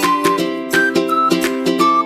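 Background music: a bright plucked-string tune in the manner of a ukulele, with quick notes over a steady accompaniment.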